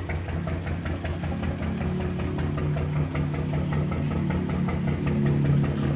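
Fishing boat's engine idling, a steady low drone with an even, rapid knock, running slightly higher after about a second.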